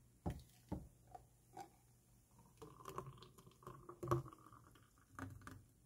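Strawberry milkshake being poured from a blender jar into a stainless steel cup, faint. A few short knocks of the jar come first, then about two seconds of the thick liquid running into the cup, then a few more knocks.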